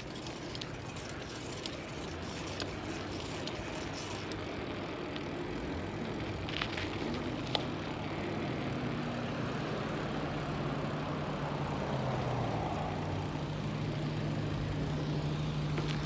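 Bicycle ride along a street: steady road and wind noise with a couple of light clicks, and a motor vehicle's low engine hum that comes in about six seconds in and grows louder.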